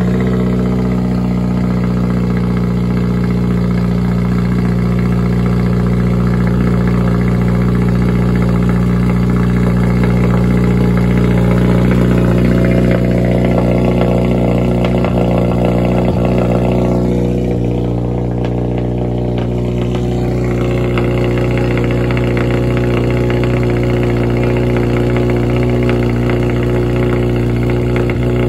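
2022 Subaru WRX's turbocharged 2.4-litre flat-four, breathing through a full ETS turbo-back exhaust with the restrictive stock pipe removed, idling steadily just after its first start-up. The level eases a little about two-thirds of the way through.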